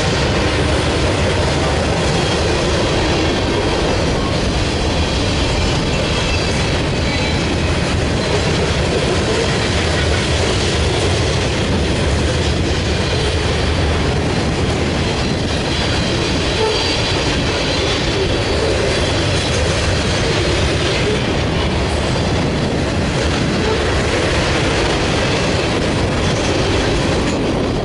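Freight cars (covered hoppers, tank cars and an autorack) rolling past close by. Their steel wheels make a steady rumble and clatter on the rails.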